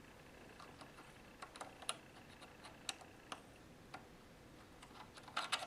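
Faint, scattered small clicks and ticks, with a short cluster of clicks near the end: a coin-cell battery being worked out of its holder on a circuit board.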